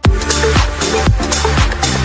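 Background electronic dance music with a steady thumping beat, about two beats a second, coming in at full level at the start.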